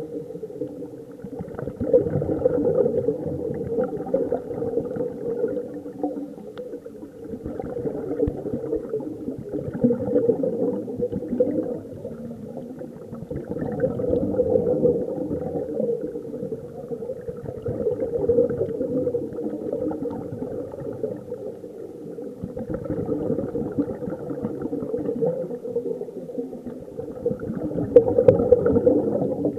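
Scuba divers breathing through their regulators underwater, the exhaled bubbles gurgling and bubbling, heard muffled underwater and swelling and falling every few seconds with each breath.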